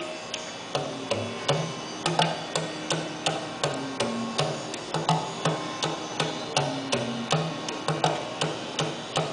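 Tabla played live in a fast, steady rhythm of sharp strokes, about three a second, with low notes from the bass drum that bend in pitch.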